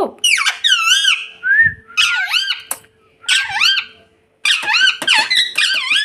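Rose-ringed parakeet (Indian ringneck) calling in about five bursts of high-pitched, squeaky calls, each call sweeping up and down in pitch, with two short pauses midway.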